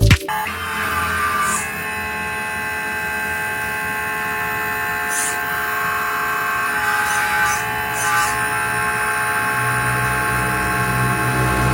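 A small motor running steadily with an even whine, joined by a deeper hum near the end.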